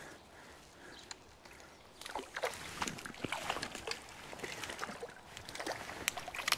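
Irregular small splashes and sloshing in shallow stream water as a small hooked trout thrashes on the line while being played in. The splashes are sparse at first and come thicker from about two seconds in.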